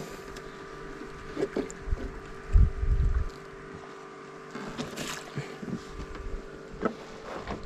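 Handling noise on a small boat as a caught fish is put into a mesh keep net hung over the side: scattered knocks and low thuds, with a short sharp rush about five seconds in.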